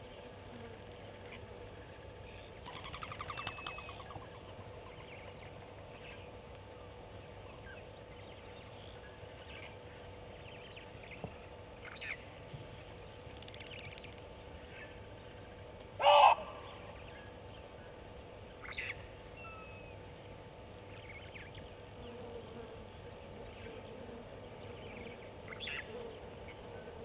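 Scattered wild bird calls over a faint steady hum: a buzzy call about three seconds in, and the loudest, a sharp short call, about sixteen seconds in.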